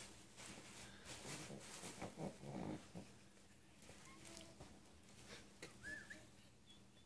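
Tibetan Spaniel grumbling low with its head inside a paper gift bag, with faint crinkling of paper and tissue as it noses about. A short rising whine near the end.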